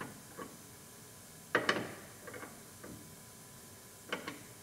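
Light clicks and short scraping rattles of a small hand tool tightening a tie-down hook into a pickup's bed wall, spread irregularly, the loudest about a second and a half in.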